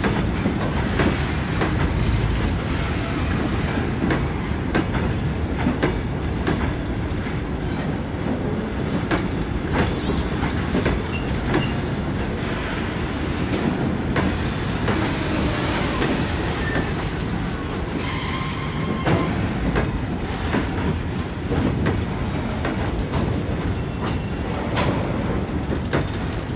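Empty BCNA covered freight wagons of a goods train rolling past, a steady rumble with the wheels clicking over rail joints in a quick, irregular series.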